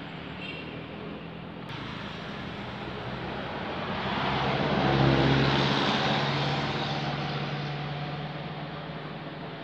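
A road vehicle passing by: its engine hum and road noise swell to a peak about halfway through, then fade away.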